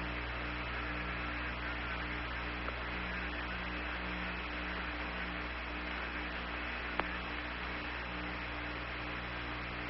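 Steady electrical hum and hiss in the transmitted audio, with low tones that pulse on and off. A faint tick comes about seven seconds in.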